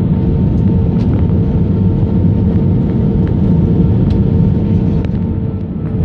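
Aircraft cabin noise in flight: a loud, steady rumble of engines and airflow with a steady droning tone, and a few faint ticks.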